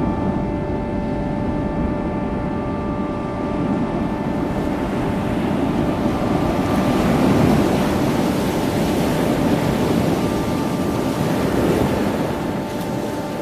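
Steady rumbling wind-and-sea noise, strongest in the low end and swelling slightly midway, with faint held tones underneath.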